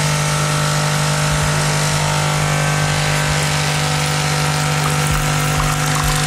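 Lavazza A Modo Mio capsule machine's water pump buzzing steadily as it pumps water through the brew circuit. The water is coming out before the capsule-piercing piston has reached the end of its stroke, so the capsule is not pierced.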